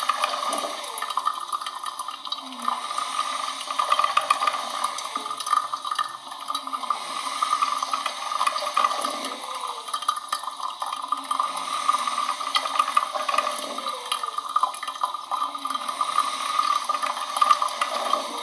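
Coffee machine running: a continuous rushing hiss, with short wavering lower tones coming and going.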